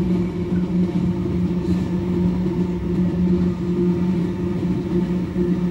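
GE AC44i diesel-electric locomotives running under power, a steady low engine drone with a fixed pitch.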